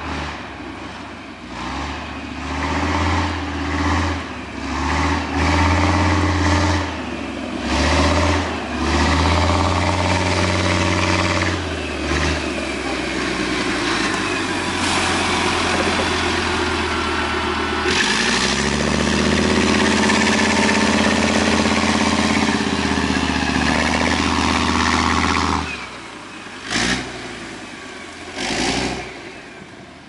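Leopard 1-based armoured recovery/engineering vehicle's diesel engine revving in repeated surges for about the first twelve seconds. It then holds a higher, steady pitch for several seconds and drops off sharply about 25 seconds in, followed by two short bursts near the end.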